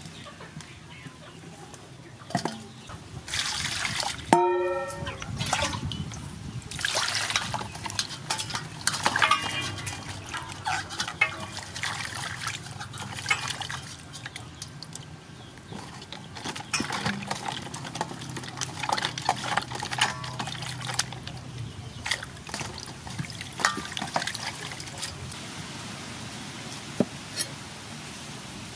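Hands swishing and splashing vegetables in water in an aluminium basin, with irregular sloshes and a short squeak about four seconds in. Near the end, a couple of sharp knife taps on a wooden chopping board.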